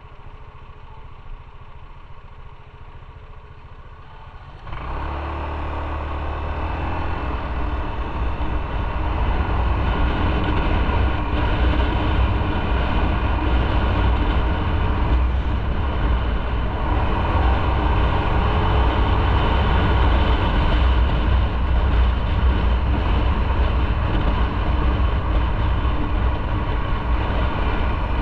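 Motorcycle engine idling low, then about five seconds in it pulls away and the engine and wind noise build over the next few seconds into steady, loud riding at speed.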